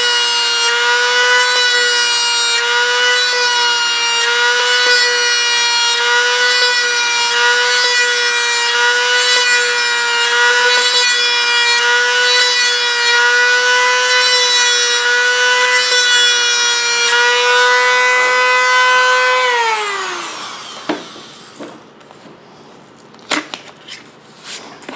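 Dremel rotary tool spinning a brass tube, running at a steady high whine with a light scraping that comes and goes about once a second, as the tube embosses rivet marks. About 20 seconds in it is switched off and winds down, falling in pitch, followed by a few light clicks.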